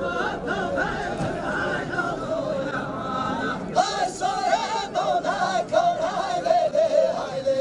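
Men singing an unaccompanied Kurdish folk song for the halay line dance, a wavering, ornamented melody; from about four seconds in a single louder voice carries the tune.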